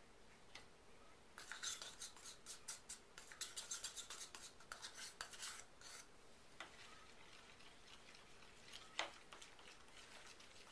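Small spoon scraping and clinking in a little cup while scooping cocoa powder, then stirring it into soap batter in a plastic jug: a quick run of faint clinks and scrapes for a few seconds, then a single click near the end.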